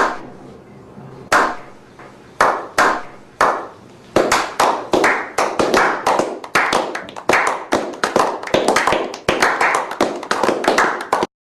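A small group hand-clapping a slow clap. A loud sharp hit comes first, then a few single claps about a second apart. From about four seconds in, more hands join and the clapping quickens into steady applause, which cuts off suddenly near the end.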